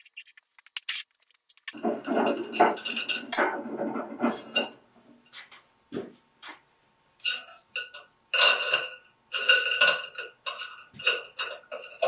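Metal clanking and clinking from a hand pallet jack and the stacked iron weight plates it carries as they are shifted and handled. A stretch of dense clatter comes a couple of seconds in, followed by separate sharp clinks with short metallic ringing through the second half.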